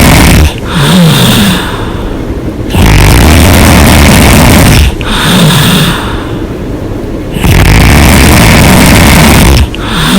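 A woman snoring loudly and hard with her mouth open. The long, loud snores come about every five seconds and last about two seconds each. Between them is a quieter stretch with a short wavering hum.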